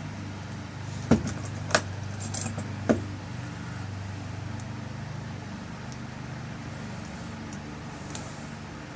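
Small metal parts of a lock cylinder clicking and clinking as the tail piece is screwed back on: three sharp clicks within the first three seconds, then a few faint ticks, over a steady low hum.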